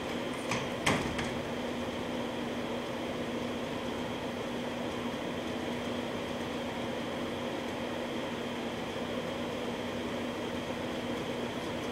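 A steady mechanical hum with a constant low tone, and two short knocks about half a second and a second in.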